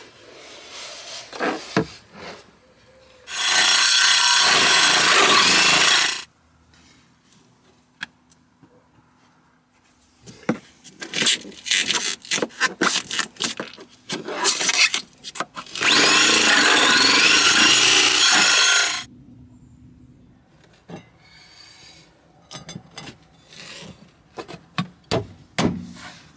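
Hole saw on a power drill cutting through the van's wooden and metal floor for the heater turret, in two loud bursts of about three seconds each. Knocks and clatter of tools being handled come between and after.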